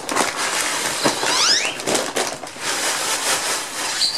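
Kitty litter being poured out onto spilled engine oil on concrete to soak it up: a steady gritty rushing hiss, with a brief run of quick rising high chirps about a second and a half in.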